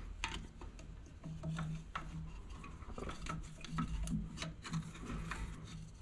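Light clicks, taps and rubbing as a new rubber drive belt is worked by hand onto the metal pulleys inside a Jet 16-42 lathe headstock.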